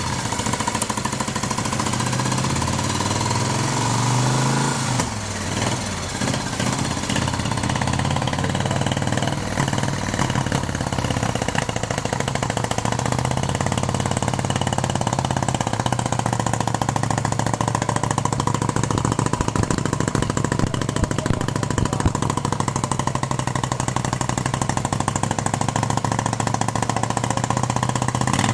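Moto Guzzi Ambassador's 90-degree V-twin, bored out to about 950 cc and freshly rebuilt with new rings, running on its first start-up after restoration. The revs rise and fall for the first few seconds, then hold steady at a fast idle.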